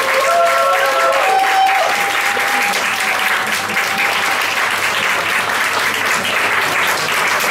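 Audience applauding steadily, a room full of hand claps, with a few held tones over it in the first few seconds.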